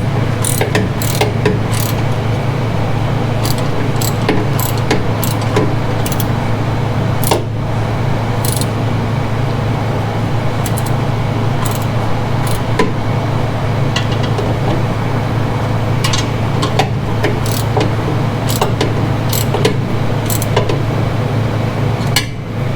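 Metal clicks and clinks of hand tools working the bolts of the exhaust tailpipe tip, over a steady low hum.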